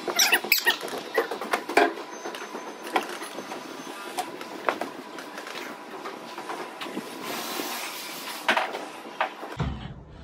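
PVC pipe and fittings being handled: irregular plastic knocks, taps and scrapes, with a few short squeaks near the start.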